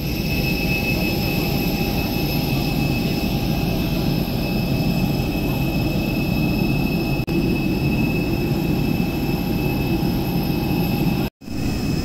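Steady jet aircraft noise: a loud rumble with a constant high-pitched whine. It breaks off for an instant near the end.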